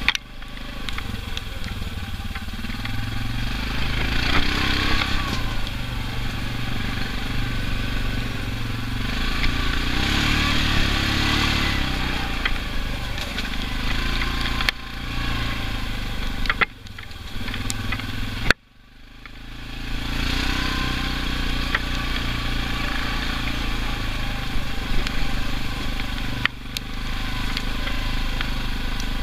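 Off-road vehicle engine running on a muddy trail, rising and easing with the throttle. About two-thirds of the way through the sound drops away abruptly for a moment, then builds back up.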